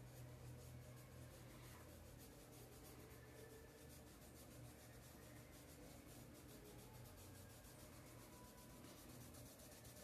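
Near silence, with faint rubbing of a flat paintbrush working fabric paint through a stencil onto black sacking fabric, over a low steady hum.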